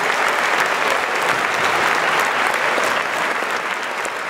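Audience in a concert hall applauding steadily, a dense wash of many hands clapping, beginning to fade near the end.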